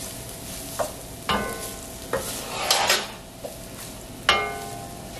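Tomato paste and spices sizzling in a pot while a spoon stirs them, scraping the bottom and knocking against the pot about six times; two of the knocks ring briefly.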